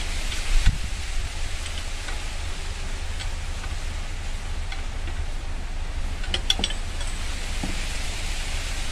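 A steady low rumble with a few light metallic clicks: one near the start and a quick cluster about six seconds in, from hand tools working on a Kubota single-cylinder diesel pump engine.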